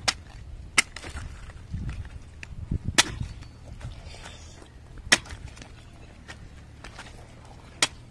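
A heavy chopping knife hacking into palmyra palm fruits: about five sharp chops at uneven spacing, a second or two apart, with lighter taps of the blade between them.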